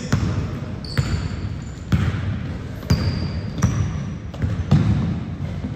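Basketball being dribbled on the court, a bounce about once a second, with several short, high sneaker squeaks between the bounces.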